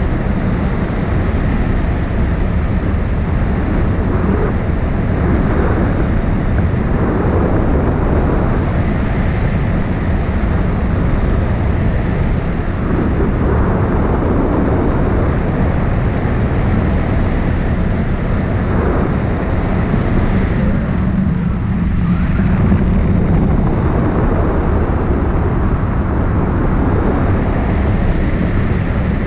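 Wind rushing over a camera microphone mounted on a hang glider's wing in flight: a loud, steady rush, strongest in the low range.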